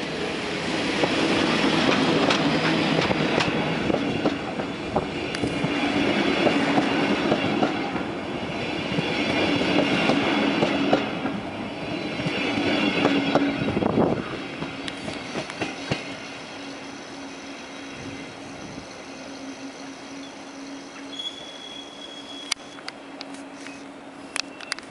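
EU07 electric locomotive and double-deck passenger coaches running slowly past along the platform as the train comes in to end its run: loud wheel-and-rail noise with clatter over rail joints and wheel squeal for the first fourteen seconds or so, then dropping to a quieter steady hum, with a brief high squeal a little past twenty seconds and a few clicks near the end.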